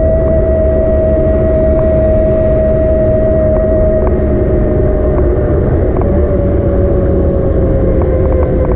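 An e-bike's electric motor whining with one steady high tone that sinks slightly in pitch over the last few seconds, over a low rumble of wind and road noise.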